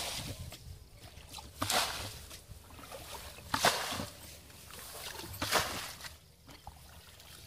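Bucketfuls of water from a muddy ditch being scooped and thrown out with a plastic bucket, splashing three times about two seconds apart: the ditch is being bailed to get at the fish.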